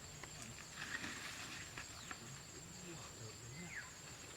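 Faint forest ambience: a steady high-pitched insect drone, with scattered twig-snap clicks and faint distant voices.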